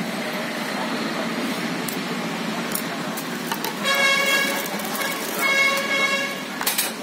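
A vehicle horn sounds twice, each blast about a second long and a single steady note, over a steady background of road traffic.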